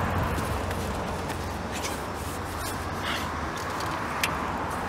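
Street noise from passing traffic, a steady low hiss, with a few light clicks and rustles.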